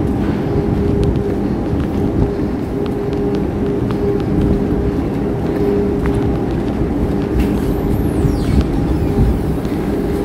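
Electric commuter train at a platform, its steady hum and rumble holding a constant low drone, with a few faint clicks and a brief falling whistle about eight seconds in.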